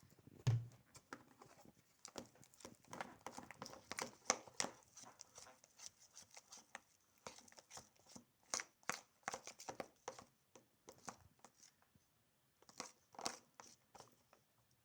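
Fluffy glue-and-shaving-cream slime being stirred and worked: a run of irregular small sticky clicks and crackles that pauses briefly around twelve seconds, comes back once more and then stops near the end.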